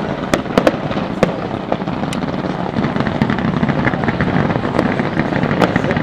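Fireworks display: a quick run of sharp bangs in the first second or so, then dense continuous crackling with scattered pops.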